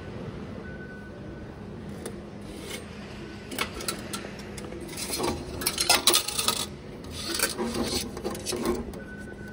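Subway ticket vending machine dispensing a ticket card and coin change into its metal outlet tray. Bursts of rubbing and scraping follow as fingers pull the card and coins out of the tray. A short beep sounds about a second in.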